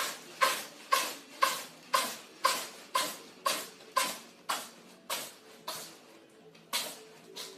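A cat sneezing over and over in a fit, a fast run of short sharp sneezes about two a second that grow fainter, then two more after a short pause near the end.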